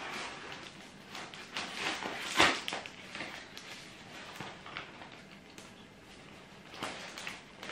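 Crumpled kraft paper wrapping crinkling and rustling as it is pulled open by hand, in irregular crackles with one sharper crackle about two and a half seconds in.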